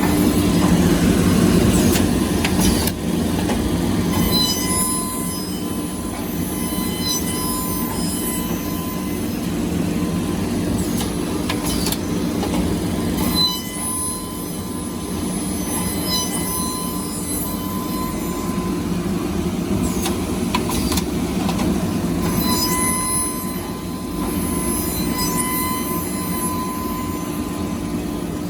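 Bamboo toothbrush handle milling machine running, shaping the handles: a steady machine hum with a high whine, and short high squeals that come again every few seconds.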